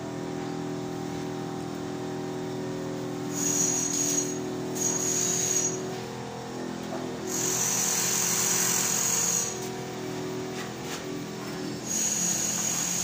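A steady machine hum, as of a motor or compressor running, that fades out about halfway through. Several bursts of high-pitched hissing, each a second or two long, come and go over it.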